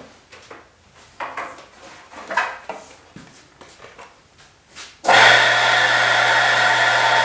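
Wood lathe switched on about five seconds in: the motor starts suddenly and runs with a steady whir over a low hum, spinning the wooden blank. A few short, quieter sounds come before it.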